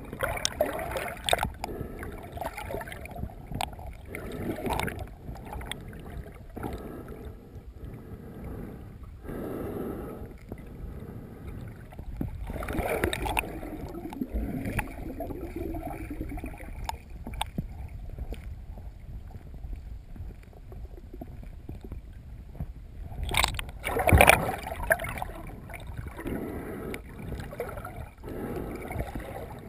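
Muffled water sloshing and gurgling against an underwater camera as a snorkeler swims, arms sweeping through the water in uneven strokes, with a louder swirl of water a little after two thirds of the way in.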